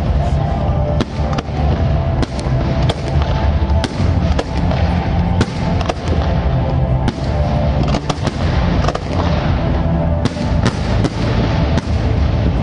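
Aerial fireworks bursting in quick, irregular succession, several sharp bangs a second with crackle between them, over music.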